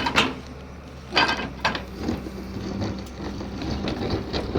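Excavator's engine running steadily under loud knocks at the start and about a second in, followed by a stretch of rattling and scraping from the machine at work.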